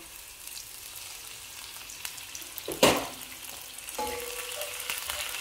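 Sliced onions sizzling in oil and water in a frying pan, a steady fine crackle. A single sharp knock comes about halfway through, and a wooden spatula stirs the onions near the end, when a faint steady hum also comes in.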